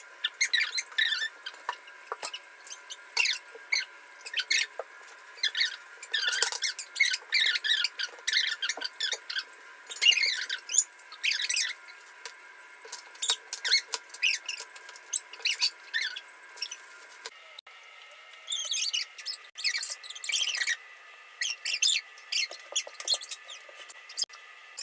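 Rapid high-pitched squeaky chirps that glide up and down in quick runs with short pauses, with no low end at all: voices and table sounds sped up and pitched high.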